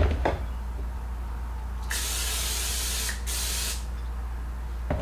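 Aerosol butter cooking spray hissing from the can in two sprays about two seconds in, a longer one of about a second and then a short one.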